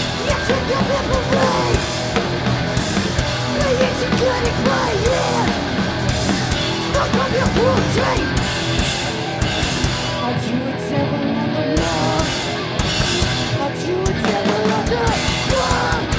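Live punk band playing loud distorted electric guitars, bass and drums. The bottom end drops away for a few seconds past the middle before the full band comes back in.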